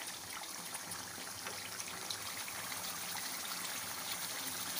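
Chicken pieces in green masala sizzling and crackling steadily in oil in a non-stick wok as they are fried down: the water has cooked off and the oil is separating.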